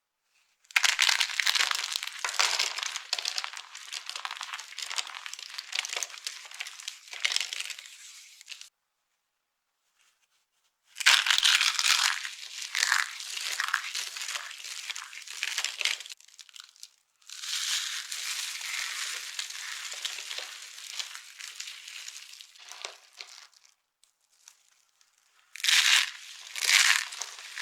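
Dry soap being crushed and crumbled, a dense, crisp crackling that comes in several long bouts broken by short silences.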